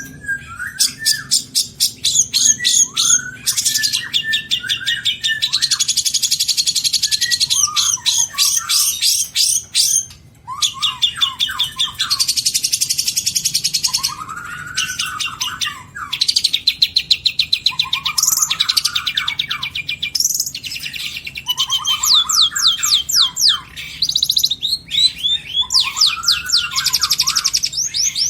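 Long-tailed shrike singing loudly and without pause: fast rattling trills and chatter, broken by repeated swooping whistled notes about every two seconds. It is a mimic's song, strung together from imitations of other birds' calls.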